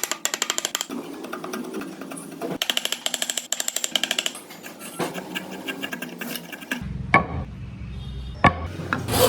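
Hand tools cutting wood: short bursts of rapid scraping strokes, each a fast run of ticks, then a low hum with a few sharp knocks near the end.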